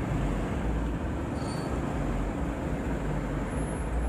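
Diesel truck engine running, a steady low rumble with general outdoor vehicle noise around it.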